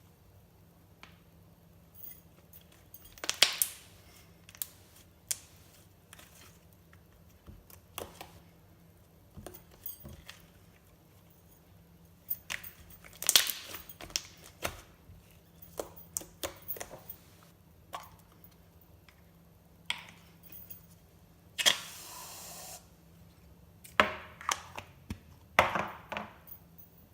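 Glossy slime being squeezed, poked and stretched by hand, giving irregular sharp pops and clicks. One longer crackle lasts about a second, about two-thirds of the way in.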